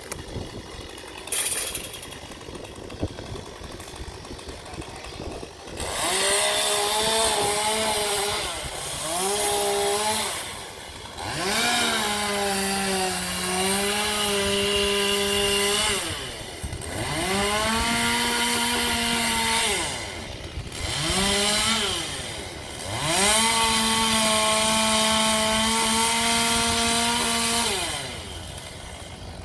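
Two-stroke chainsaw revved to full throttle for five cuts in a row. Each time the engine pitch climbs, holds high while cutting, then drops back toward idle. The first few seconds are quieter, with the saw idling or not yet cutting.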